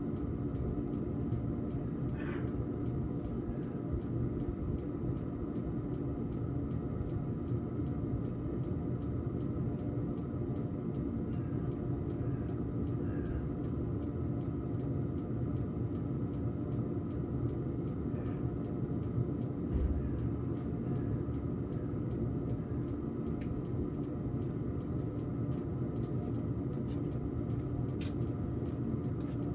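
Diesel air heater running with a steady hum from its combustion blower fan and burner on a low setting, a few clicks near the end.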